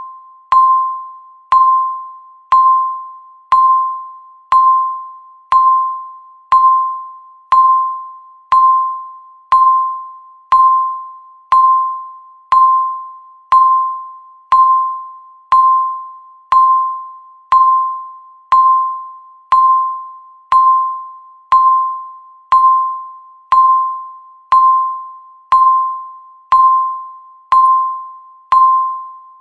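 Countdown timer's electronic beep sounding once every second, marking each passing second. Each beep is a single mid-pitched tone that starts sharply and fades away before the next.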